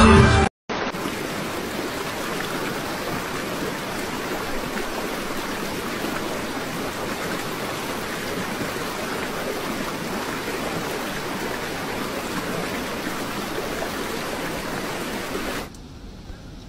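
Fast-flowing floodwater rushing over a road in a steady, even roar of water. Near the end it drops suddenly to a much quieter hiss.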